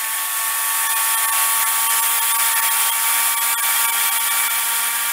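Countertop blender running steadily as it purees soft baked sweet potatoes: a motor whine of unchanging pitch over a loud rushing hiss.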